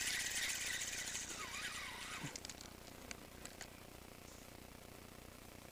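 Spinning reel on a feeder rod being cranked, winding in braided line with a fast whirring tick, which stops about two seconds in. A few light clicks from the reel follow.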